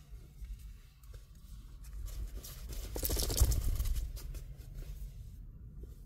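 Rustling and handling noise as things are moved about by hand, swelling to its loudest a little past halfway and then dying down.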